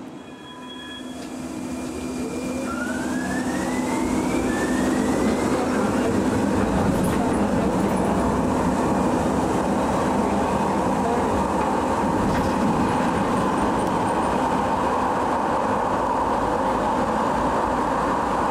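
Siemens S200 light rail train pulling away in a subway tunnel: a brief steady tone near the start, then the traction motors' whine rising in pitch as it accelerates, settling into a steady loud running noise of wheels on rail.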